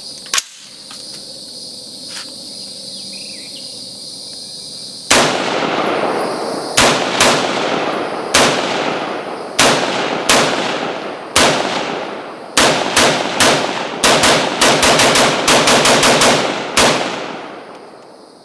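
Ruger 5.56 semi-automatic rifle firing about five seconds in. The first shots come singly, roughly half a second to a second apart, each with a ringing echo, and near the end they quicken into a rapid string of about five shots a second.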